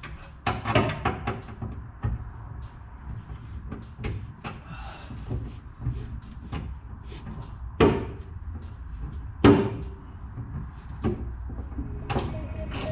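Scattered knocks, clunks and taps of hands and tools working on a car's metal body and parts while a part is being fitted, with sharper thuds about eight and nine and a half seconds in.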